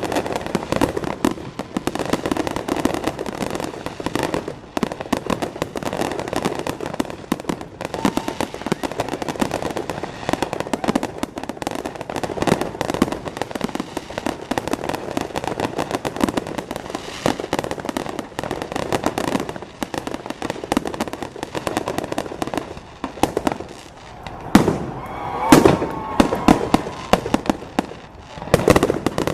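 Fireworks going off in a dense, continuous run of rapid crackling pops, with a few louder bangs near the end.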